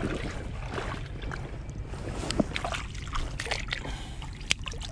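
Shallow water sloshing and lapping among rocks as a small hooked sea bass is brought in at the water's edge, with a few sharp clicks and taps, over a steady low rumble of wind on the microphone.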